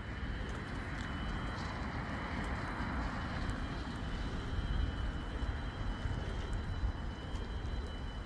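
A vehicle passing on a wet road, its tyre hiss swelling and then fading over the first few seconds, over a steady low rumble of traffic. Two faint steady high tones run underneath.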